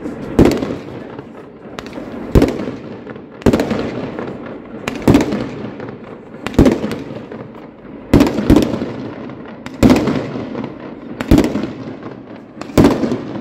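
A multi-shot fireworks battery firing shot after shot. There are about ten sharp bangs, roughly one every second or so, and each dies away in a lingering tail.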